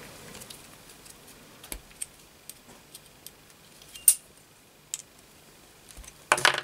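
Scattered small metallic clicks and taps of an Allen key against the steel parts of a tool post drill assembly as it is handled, the sharpest tap about four seconds in and a louder clatter near the end.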